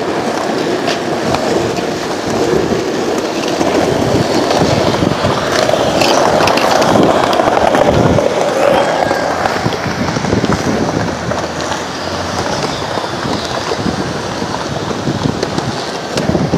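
Skateboard wheels rolling on asphalt: a steady rumble with scattered clicks and knocks.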